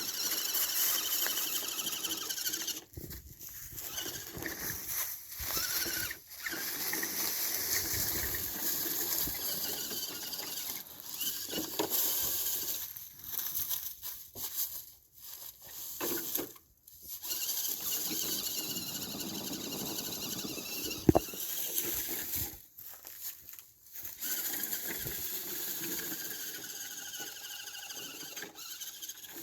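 Electric motor and geartrain of a Redcat Everest-10 RC rock crawler whining in spurts as it crawls through soft sand, cutting out and starting again many times. One sharp click about two-thirds of the way through.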